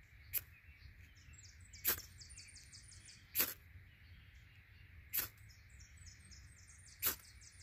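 Ferro rod struck with its scraper five times, about one and a half to two seconds apart, each a short sharp scrape, throwing sparks onto a fire starter stick to light it. A rapid, high chirping comes and goes in the background.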